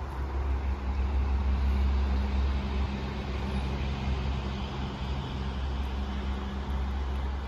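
Low, steady hum of a motor vehicle's engine running, over the even rush of fast river water.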